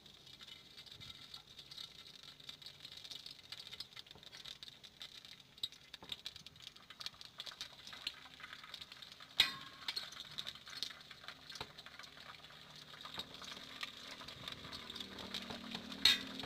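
Hot oil sizzling and crackling in a wok as a batter-coated lotus petal fries. A sharp click about nine seconds in and two more near the end.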